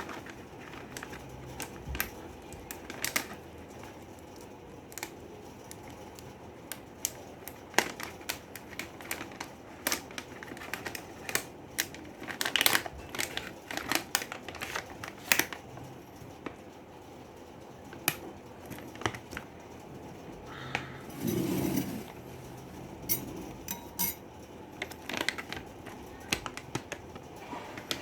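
Irregular small clicks, ticks and light clinks of M&M's hard-shelled chocolate candies and their packaging being handled, busiest a little before the middle.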